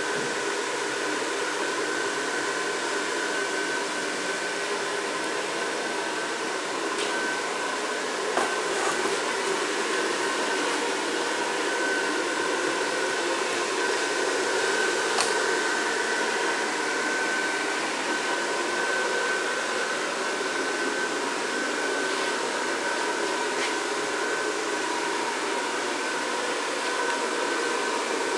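Electric blower fan of an inflatable Christmas train decoration running steadily: an even whir with a constant hum and a few faint ticks.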